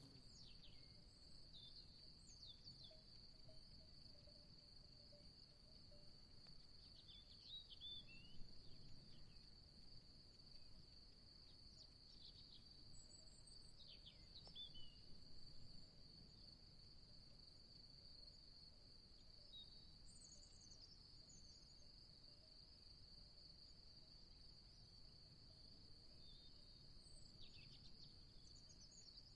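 Faint nature ambience: a steady, high insect trill like a cricket chorus, with short bird chirps now and then, over a soft low rumble.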